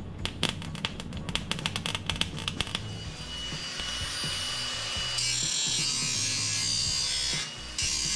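MIG welder crackling as it lays weld on a rusted steel A-pillar patch. About three seconds in, a handheld AEG power tool starts with a thin whine, then bites into the pillar's rusted sheet steel with a harsher, louder cutting noise that drops out briefly near the end.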